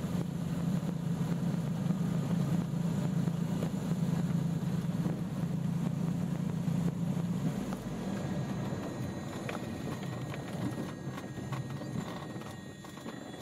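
Light twin-engine propeller plane's engines droning steadily, heard inside the cabin while taxiing. The low drone eases off about eight seconds in and fades toward the end as the engines are throttled back.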